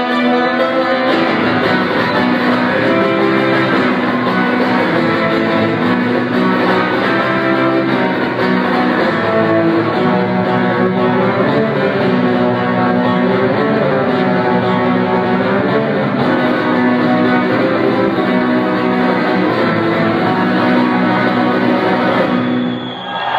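Guitar solo played live through the arena sound system, a continuous run of notes. It breaks off shortly before the end.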